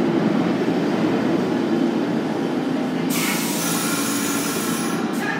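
R46 subway train rolling slowly into a stop, a steady low rumble of wheels and running gear that slowly fades. About three seconds in comes a sudden loud hiss of air from the brakes as it stops, lasting about two seconds, with short hisses again near the end.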